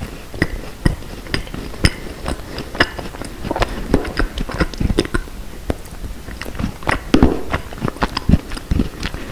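Close-miked chewing of a chocolate macaron: irregular crisp crunches and clicks, several a second, from the shell and the bits of chocolate inside the filling.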